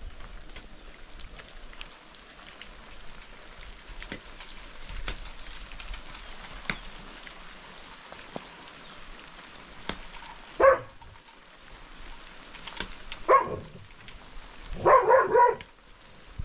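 Steady rain patter with scattered drop ticks. A dog barks near the end: once, again a few seconds later, then a short run of barks.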